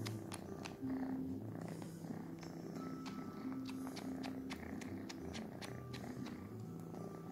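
A kitten purring steadily while it suckles on a cotton t-shirt, with soft wet sucking clicks from its mouth several times a second.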